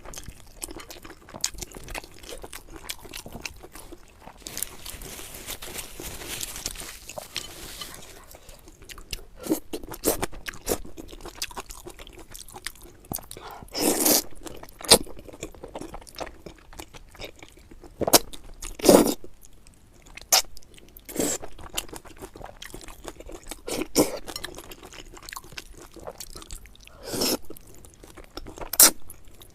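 Close-miked eating: a person chewing and biting into chicken and noodles, with steady wet mouth clicks and a sharp crunchy bite every few seconds. A soft hiss lasts several seconds about four seconds in.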